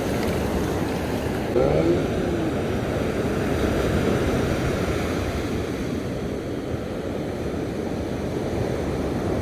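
Ocean surf breaking and washing up a sandy beach, a steady loud rushing noise.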